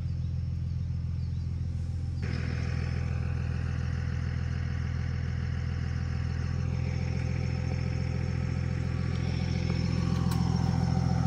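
A vehicle engine idling with a steady low drone.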